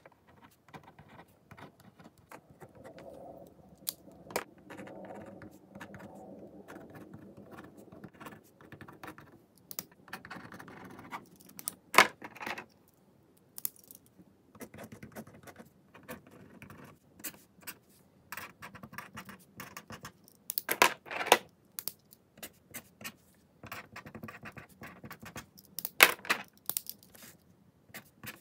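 Ballpoint and gel pens (Pentel Calme, Uni and Pilot Juice) scratching across paper as lines of writing samples are written out. Several sharp clicks cut in as the retractable pens are handled, the loudest near the middle and near the end.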